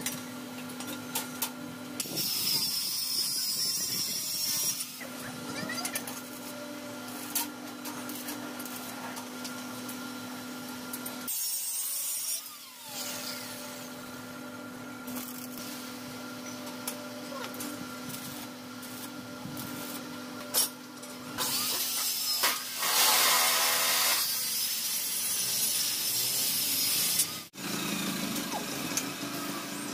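Power tool working on steel square tubing, in a burst a couple of seconds in and a longer one of about five seconds later on. Under it runs a steady hum, with many sharp metallic clicks and taps.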